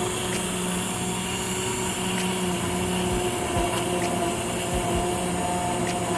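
Handheld immersion blender running steadily, its motor whirring as it purées broccoli and sweet potato soup in the pot.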